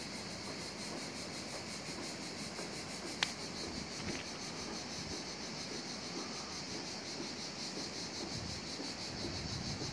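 A steady chorus of insects buzzing high and continuously, with a faint fast pulse and a faint low rumble underneath. A single sharp click comes about three seconds in.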